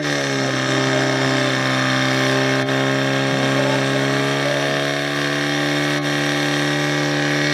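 Portable fire pump's engine running at high, steady revs as it drives water into the hose lines; its pitch climbs briefly at the start, then holds.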